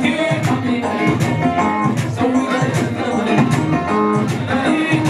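Dance music with a steady beat of about two strokes a second and a plucked string instrument.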